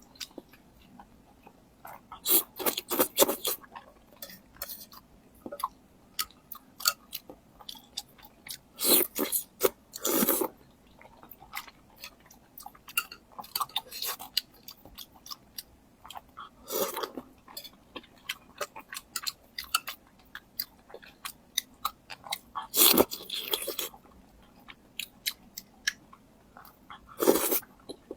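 Close-miked chewing and crunching of food with wet mouth clicks, and louder bursts of biting and crunching about every five to seven seconds.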